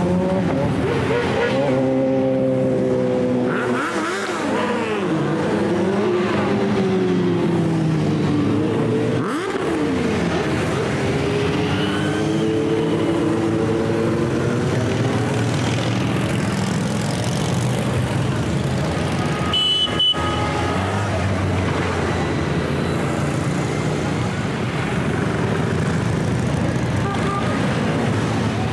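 A stream of motorcycles riding past one after another at low speed, their engines running, with the pitch rising and falling as each bike goes by. There is a short, high-pitched beep about two-thirds of the way through.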